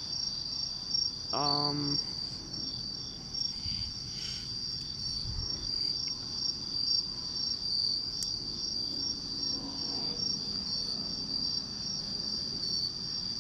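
Night insects trilling: a steady high-pitched trill with a faster pulsing chirp just above it, continuing unchanged.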